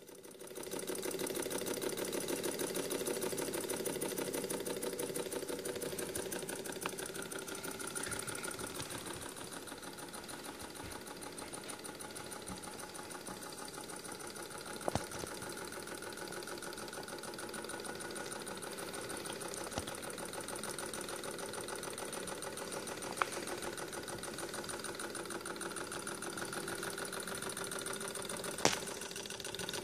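Homemade Stirling hot-air engine running steadily, heated by an alcohol burner: a fast, even mechanical ticking from its crank, pistons and linkage. A few sharp clicks stand out along the way.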